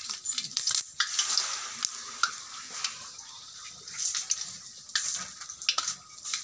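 Bay leaves frying in hot oil in an iron kadai: a sizzling hiss with scattered crackles and pops, busiest in the first couple of seconds.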